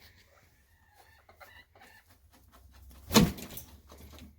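Chickens clucking softly, with one loud sharp knock about three seconds in.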